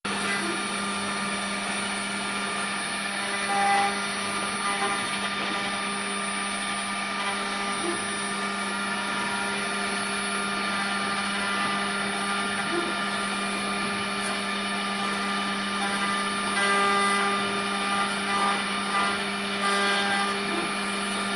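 Steady electric machine hum from a multi-spindle CNC wood router, with a constant low tone and higher overtones held level throughout, and a few faint brief knocks.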